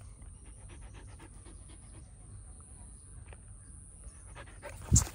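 A dog panting quietly at close range after running. A single short, loud thump comes near the end.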